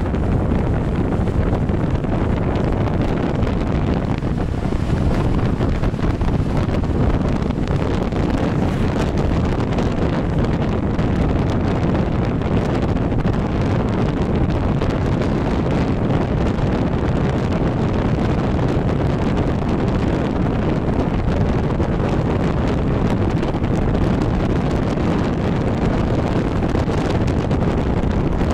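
Steady wind buffeting a microphone held outside the side of a moving coach at road speed, with the bus's road and engine noise underneath.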